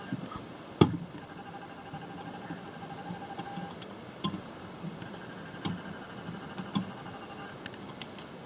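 Lego Technic pieces being handled and pressed together: a few sharp plastic clicks and taps, the loudest about a second in, over faint steady background tones.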